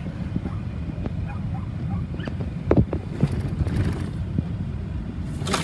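Steady low rumble of a car's engine and tyres heard from inside the cabin while driving, with a few faint clicks and a brief swish of wind near the end.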